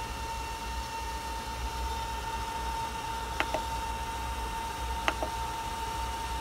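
Fast replacement cooling fan on a Monoprice Select Mini 3D printer running steadily with a high, even whine over a rushing hiss. Two short double clicks, about two seconds apart, from the printer's push-button control knob.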